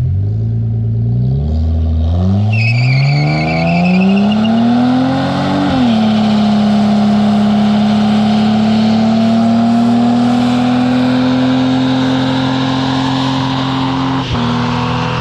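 Holden VX Commodore's Ecotec V6 revving up hard in a burnout, its pitch climbing for several seconds as the tyres break loose and squeal, then held at high revs with the rear tyres spinning in a steady hiss of tyre noise. The revs dip briefly near the end.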